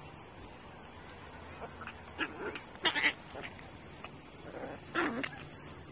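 Small puppies play-fighting, giving a few short high-pitched yaps, the loudest about three seconds in and again near the end.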